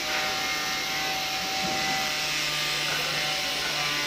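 Handheld electric sander running steadily against a wooden door panel: an even motor hum with the rasp of sandpaper on wood.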